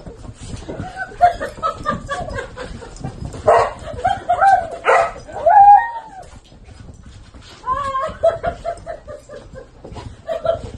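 Huskies play-fighting, vocalizing with a run of short yips and whines that bend up and down in pitch, loudest about four to six seconds in.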